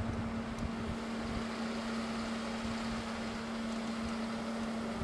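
A steady mechanical hum, like an engine running, holding one pitch throughout, with uneven rumble of wind on the microphone.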